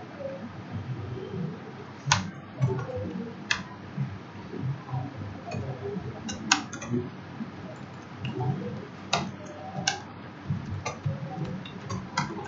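Computer keyboard typing: irregular, scattered key clicks, some sharper than others, over a low background rumble.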